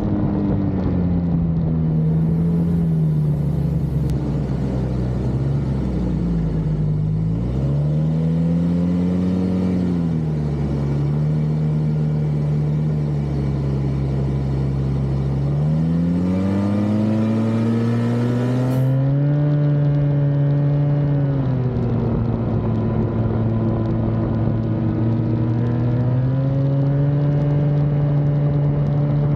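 Snowmobile engine running under way, its pitch falling and rising with the throttle: it dips about six to seven seconds in, climbs again around sixteen seconds, and holds a steadier, higher note for the rest.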